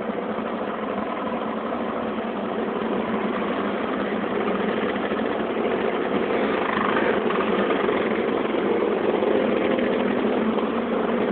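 Engines of a procession of motor scooters riding slowly past one after another, a steady overlapping engine noise that grows a little louder about halfway through.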